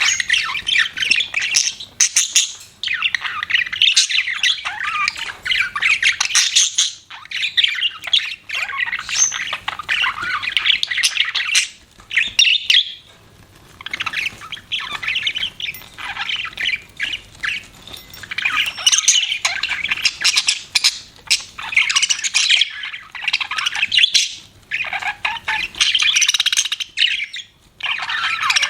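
Budgerigars chattering and chirping, a dense, warbling stream of squawks and tweets that comes in runs of a few seconds, with a short lull about halfway through.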